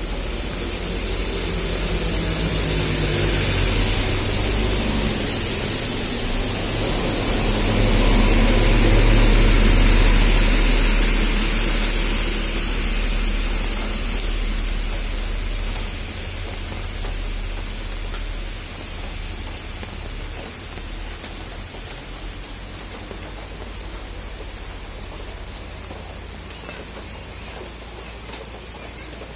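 Steady rain with a deep low rumble that swells to its loudest about a third of the way through and then slowly eases.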